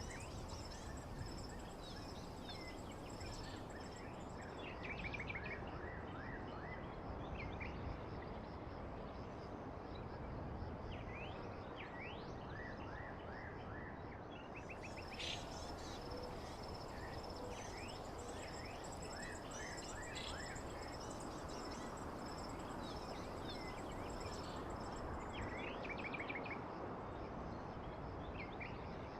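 Nature ambience: birds chirping in short scattered calls over a steady hiss of rain, with a thin, steady high trill like insects running underneath.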